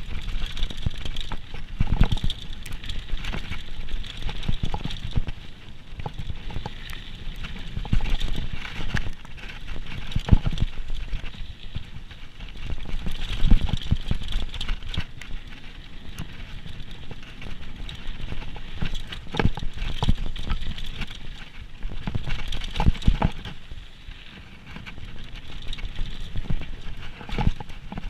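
Downhill mountain bike running fast over a rough trail: a continuous clatter of knocks and rattles from the tyres striking rocks and roots and from the chain and frame, over a steady rumble and hiss. It is heard through an action camera riding on the bike or rider.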